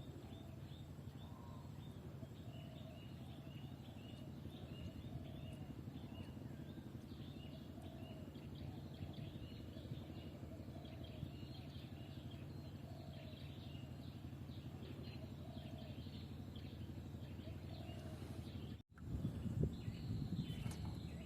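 Birds calling over a steady low background noise: a long run of short, high chirps repeated over and over, with lower notes recurring about every second. Near the end the sound cuts out abruptly and gives way to louder, irregular bumps.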